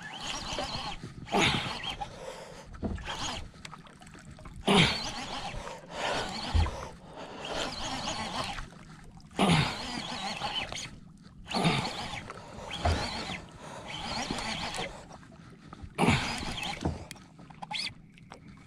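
Hard, strained grunts and exhalations from an angler pumping and reeling against a heavy fish on a slow-jigging rod. They come in repeated bursts every second or few seconds, each starting sharply and falling in pitch.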